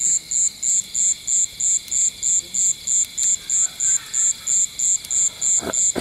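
Night insects chirping: a steady train of high, short chirps, about three a second, over a continuous high drone of other insects. A brief vocal sound comes near the end.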